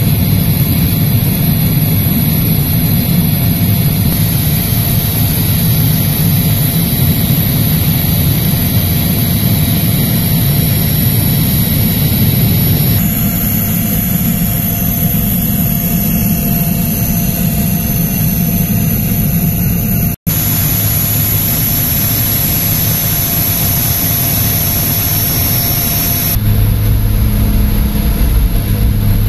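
Steady, loud drone of a small propeller plane's engines in flight, heard from inside the cabin, with a thin high whine above it. The sound cuts out for an instant about two-thirds of the way through, and the drone shifts to a steadier low hum near the end.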